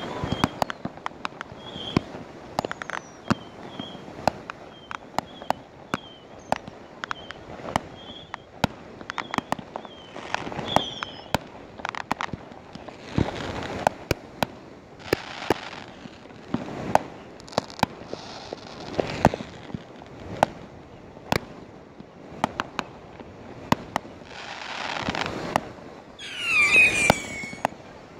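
Consumer fireworks going off: a steady stream of sharp pops and bangs, near and far, with a crackling rush every few seconds. A loud, high gliding whistle comes near the end.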